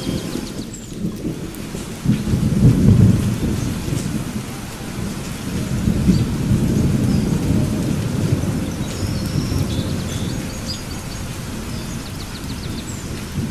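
Thunder rumbling deeply over steady rain, the rumble swelling about two seconds in and rolling on through.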